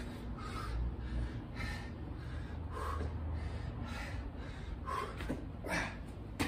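A man breathing hard, short loud gasps about once a second, out of breath from doing burpees.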